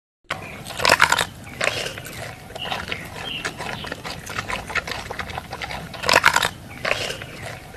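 Animals crunching and chewing on sugarcane stalks: irregular crackling bites, with the loudest bursts about a second in and again about six seconds in.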